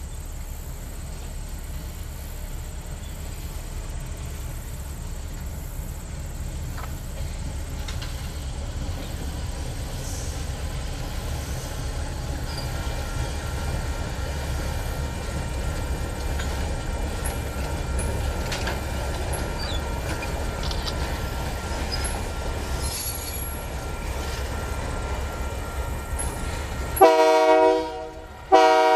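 MLW S-13u end-cab diesel switcher and its boxcars passing, a steady low rumble of engine and rolling wheels. Near the end the locomotive's multi-note horn sounds twice, a short blast and then a second one that keeps going.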